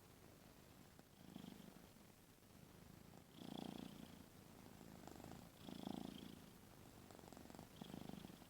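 Domestic cat snoring with its mouth open: a faint rasping snore on each breath, about every two seconds, four in all.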